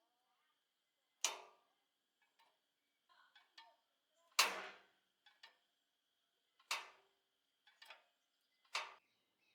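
A series of sharp knocks or taps at irregular intervals, four louder ones a couple of seconds apart with fainter ones between, over a faint steady high-pitched tone.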